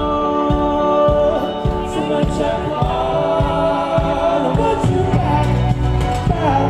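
Indie rock band playing live through a festival PA, heard from within the crowd: held multi-part vocal harmonies over a steady drum beat, with the bass growing stronger about five seconds in.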